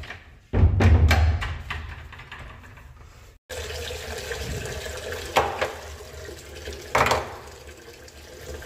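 Water from a chrome pillar tap running and splashing into a ceramic washbasin, starting with a loud gush about half a second in and then running steadily. A couple of sharp knocks sound over it later on.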